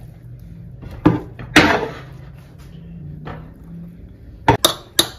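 Kitchen utensil knocks and clatter as cooked rice is spooned into a metal springform pan: two knocks about a second in, the second with a short rustle of falling rice, then a quick run of sharp taps near the end, over a faint steady hum.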